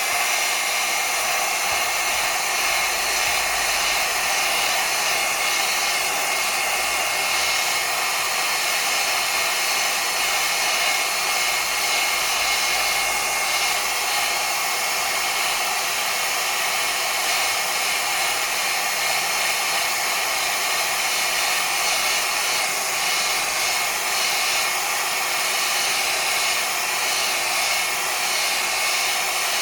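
Hot-air blower running steadily with a constant rushing noise and a faint steady whine, heating the back glass of a Samsung Galaxy S10 to soften its adhesive before prying.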